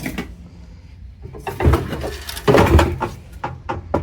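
Metal parts of a hot water heater scraping and clanking as they are levered apart by hand, in a few rough bursts with several sharp knocks near the end.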